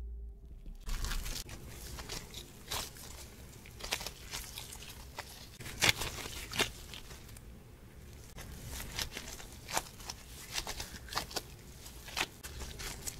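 Crumbly scone dough being broken apart and squeezed into rough balls by hands in disposable plastic gloves, with irregular crackling and crinkling of the gloves and plastic wrap and soft crunching of the dough; the loudest crackle comes about halfway through.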